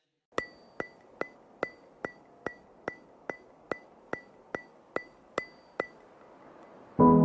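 A sharp, pitched tick repeated evenly about two and a half times a second, thirteen ticks in all, like a metronome in the soundtrack. Near the end, background music with piano starts.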